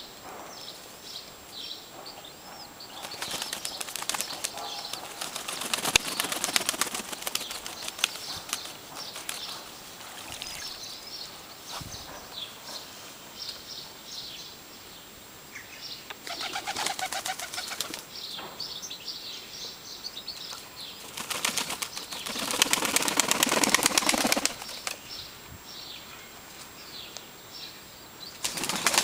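Turkish tumbler pigeons flapping their wings in three main bouts, with faint high bird chirps throughout.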